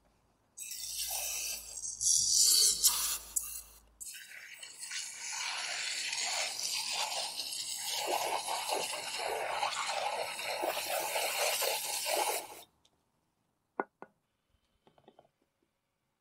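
Aerosol can of foaming degreaser spraying onto a greasy CV joint: an uneven hissing burst, then a long steady hiss that stops abruptly, followed by a couple of sharp clicks.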